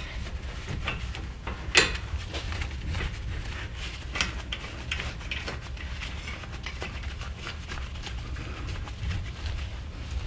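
Light metallic clicks and taps as the brake caliper bolts are put back and threaded in by hand, with one sharper click about two seconds in, over a steady low rumble.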